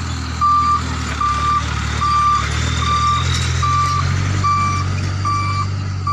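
Toyota dump truck's engine running as it drives past, with an electronic alarm beeping at one steady pitch, a little more than once a second.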